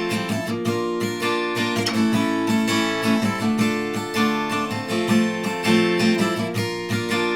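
Guitar strummed in a steady rhythm: an instrumental passage of the song, with no singing.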